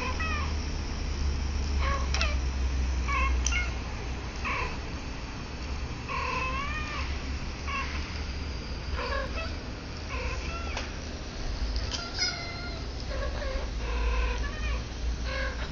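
Kittens mewing over and over: short, high calls that bend in pitch, about one a second, over a low steady hum.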